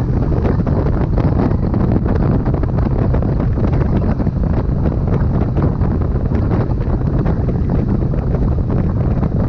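Loud, steady wind buffeting on the microphone: a continuous low rumble with rapid irregular gusts.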